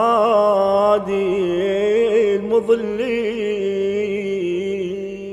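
A man's voice chanting an Arabic Ramadan supplication in the melismatic radood style, drawing the word "hadi" out into one long, ornamented, wavering note that fades near the end.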